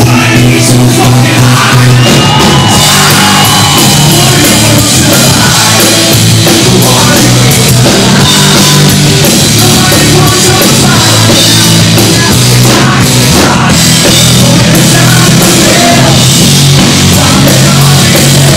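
Rock band playing live and loud: electric guitar, bass guitar and drums, with a male lead singer.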